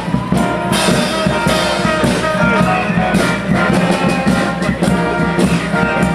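A live brass band playing, trombone among the horns, over a steady beat.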